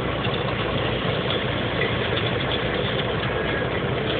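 Truck engine running steadily, heard from inside the cab while moving slowly in traffic, with road noise.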